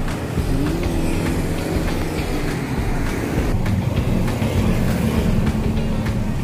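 Road traffic going by on a busy street: a steady rumble of passing vehicles, with one engine rising in pitch about half a second in and a steady engine hum in the second half.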